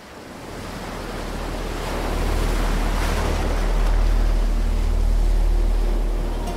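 Ocean surf washing against rocks, fading in from silence and swelling, with a deep rumble under the hiss of the water.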